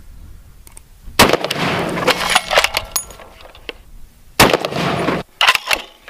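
Two rifle shots from a scoped bolt-action rifle, about three seconds apart, each a sharp crack followed by an echo that dies away over about a second.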